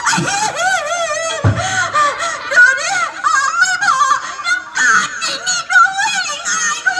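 Amplified voice of a stage performer in a Thai village show, heard through the stage loudspeakers, sliding and wavering in pitch in a sung or exaggerated theatrical delivery. There is a short low thump about one and a half seconds in.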